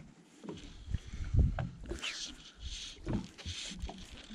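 Water slapping and knocking irregularly against a small boat's hull, with swishes of fly line being stripped in by hand.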